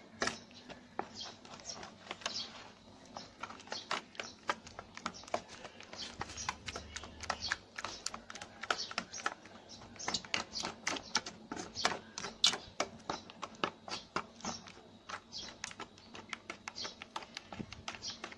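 A white plastic ladle stirring thick batter with chunks of sweet potato and pumpkin in an aluminium bowl, clicking and clacking against the metal in quick, irregular knocks.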